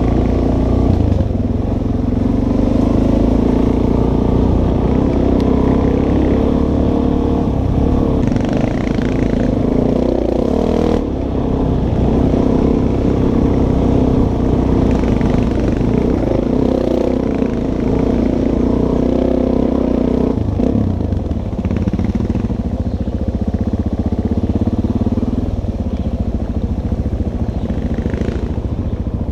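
Dual-sport motorcycle engine running under a rider on a dirt trail, its revs rising and falling with the throttle, settling lower about two-thirds of the way through.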